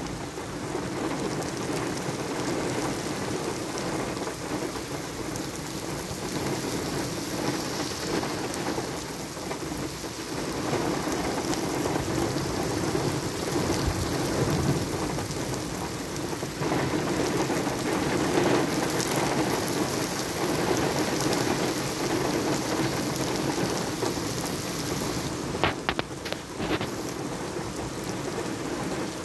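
Heavy monsoon rain pouring onto pavement and the car, a steady dense hiss, with a few sharp clicks near the end.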